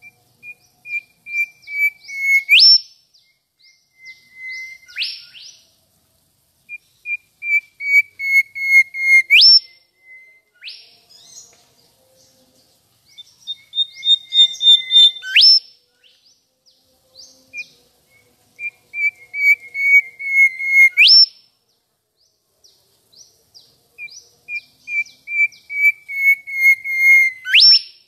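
Mangrove whistler singing: repeated phrases made of a quick run of whistled notes that ends in a sharp upward whip, six times with short pauses between.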